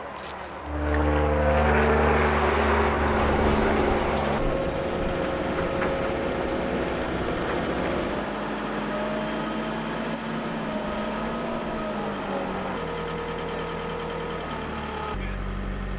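Engine of a front loader running, growing sharply louder about a second in, then running on with its pitch shifting slowly up and down.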